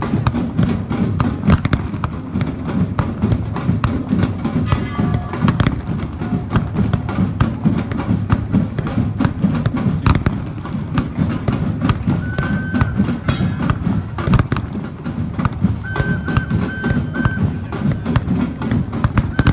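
Steam whistles giving short toots over continuous clattering and thumping, with a rising whistle about two-thirds through and three quick toots near the end.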